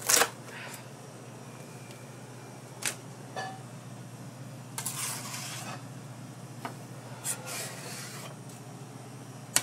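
Sporadic sharp knocks and clatters from handling on a kitchen work surface, with a couple of short rustling stretches, over a steady low kitchen hum.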